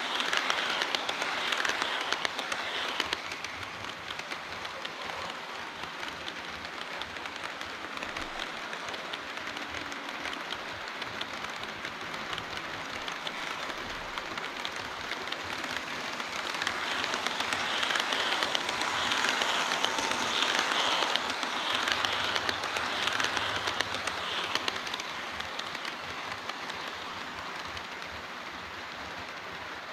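HO-scale model trains running on a layout: a continuous fine metallic rattle of small wheels on the rails and rail joints. It is louder at the start and again about two-thirds of the way through, as a train runs close by.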